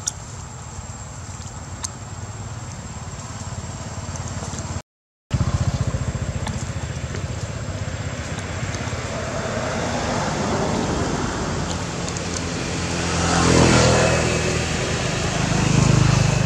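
A motor vehicle engine runs nearby, swelling louder about thirteen seconds in and again near the end. The sound drops out completely for a moment about five seconds in.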